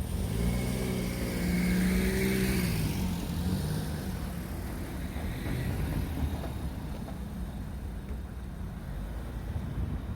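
A road vehicle driving past, loudest in the first few seconds, its engine note dropping in pitch as it goes by, followed by a low steady traffic rumble.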